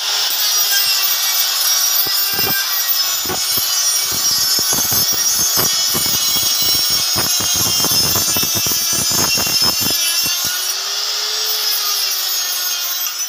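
Electric die grinder running at a steady high whine, its mounted grinding stone grinding out the edge of a cut hole in a steel plate. Rapid, uneven scraping of stone on steel comes through from about two seconds in until about ten seconds.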